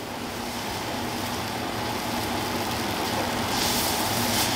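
Flour-and-water gravy hissing and bubbling in a stainless steel pan over a high gas flame as it is stirred, heating up and starting to thicken. The steady hiss grows slightly louder, brightening about three and a half seconds in.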